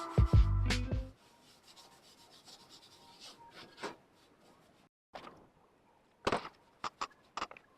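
Music cuts off about a second in, followed by a few short scraping and rubbing sounds with quiet gaps between them.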